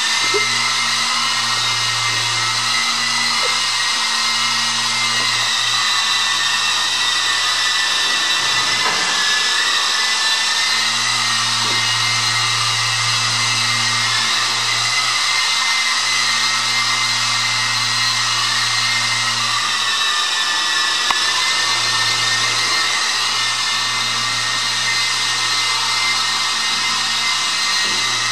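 Walkera 5G4 radio-controlled micro helicopter in flight: a steady motor and rotor whine that wavers slightly in pitch as it manoeuvres. A low hum cuts in and out every few seconds underneath.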